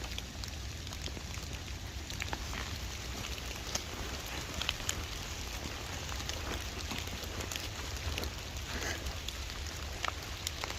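Steady rain falling, with many scattered individual drops ticking sharply.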